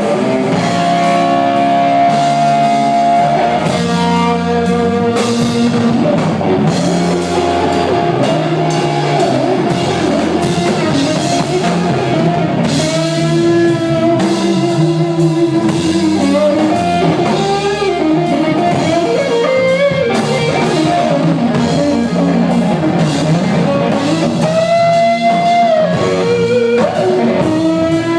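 Live rock band: an electric guitar plays a lead of sustained notes that bend in pitch, over a drum kit.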